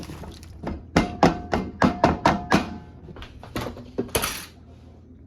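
Chopped onion and garlic being knocked into a metal pan: a quick run of about eight sharp knocks with a faint metallic ring, then a few softer knocks and a brief hiss.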